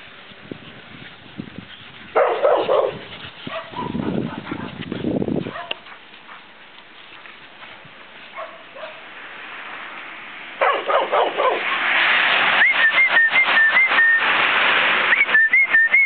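A dog and puppies at play, giving short yips and whimpers. Over the last few seconds a high whistled call repeats in short rising-and-falling notes above a loud rushing noise.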